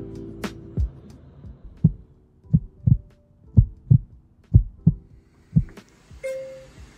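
Heartbeat sound effect: slow, low double thumps, lub-dub about once a second, repeating four or five times under the 'time to push' transition.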